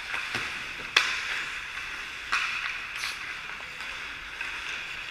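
Ice hockey skates scraping and carving on the ice, with a few sharp clacks of sticks and puck, the loudest about a second in.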